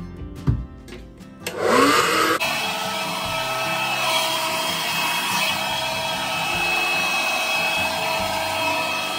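A small electric appliance motor switched on about one and a half seconds in. It spins up with a rising whine, then runs steadily with a whining hum over a loud, even hiss.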